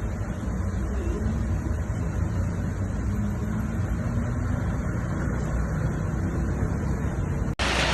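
Strong gusty wind buffeting the microphone as a steady low rumble. Just before the end it cuts abruptly to a brighter rushing hiss of wind and rain.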